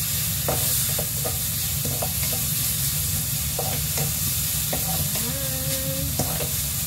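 Meat, tomato and onion sautéing in a speckled stone-coated wok: a steady sizzle, with the scrape and tap of a wooden spatula stirring at irregular moments.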